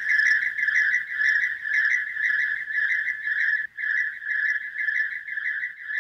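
Steady rhythmic chirping, about five pitched chirps a second, with a brief break a little past the middle.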